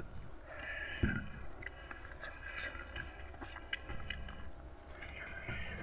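A person chewing and biting food close to the microphone, with irregular sharp mouth clicks.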